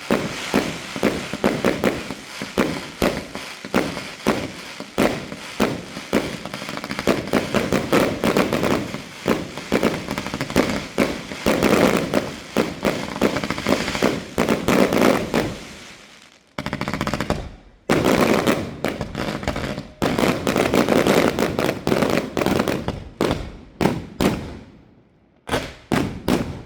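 Fireworks going off in a rapid, dense barrage of bangs and crackles. It eases briefly about sixteen seconds in, resumes, then thins to a few separate bangs that stop near the end.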